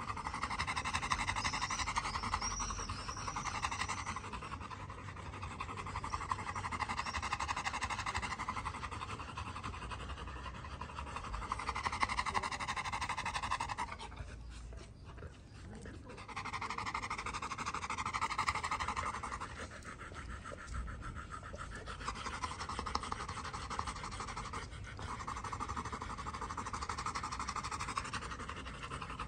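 Yellow Labrador retrievers panting open-mouthed, the panting easing off briefly about halfway through.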